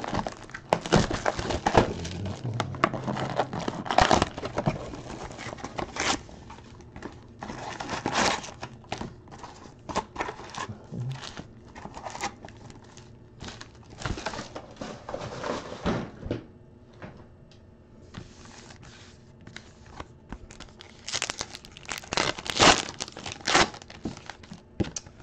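Trading-card pack wrappers crinkling and tearing as a hobby box of packs is handled and opened by hand, in irregular bursts.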